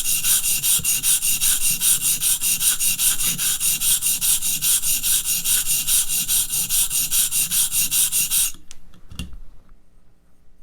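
A 400-grit stone on a guided knife sharpener scraping back and forth along a steel blade edge in quick, even strokes, several a second. This is grinding the second side of the blade to raise a burr. The stroking stops about 8.5 seconds in, followed by a single knock.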